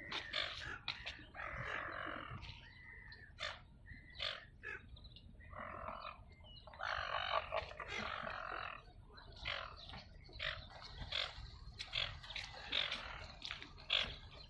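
Birds calling: many short sharp chirps along with several harsh, rasping squawks about a second long.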